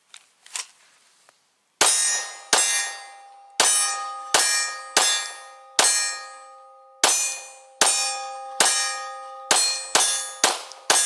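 Glock 23 Gen4 .40 S&W pistol firing about thirteen shots at an uneven pace, from about two seconds in, with a short pause midway. Each shot is sharp and is followed by a metallic ringing that hangs on between shots. A few faint clicks come before the first shot.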